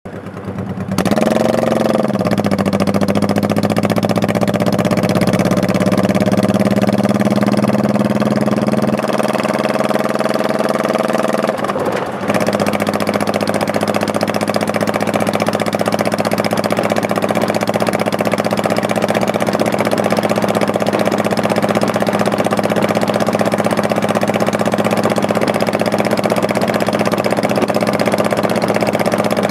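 Honda Shadow Spirit 1100's V-twin engine starting about a second in, its pitch dipping and rising, then running steadily at an even pitch, with a brief dip and change in tone about twelve seconds in.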